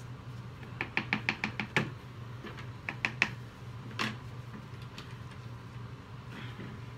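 A utensil knocking against a plastic mixing bucket of soap batter: a quick run of about seven light taps in under a second, then three more a second later and a single one after that, over a low steady hum.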